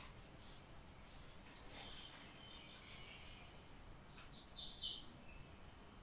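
Near silence: quiet room tone with a faint rustle about two seconds in and a brief run of faint high chirps about four and a half seconds in.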